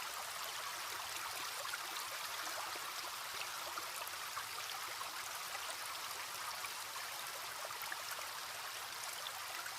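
Small stream trickling and babbling steadily, a soft even rush with many tiny droplet ticks.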